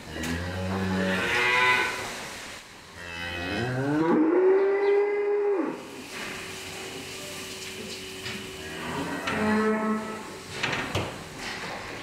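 Dairy cows mooing: three calls, the second rising in pitch and held longer than the others.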